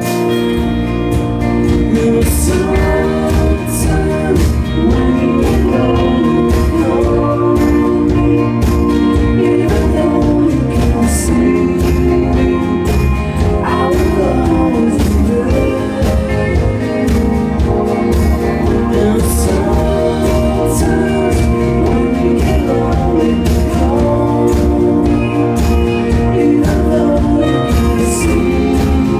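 Live band playing a slow pop-country song: strummed acoustic guitar, electric guitar, bass and drums, with a man singing over them.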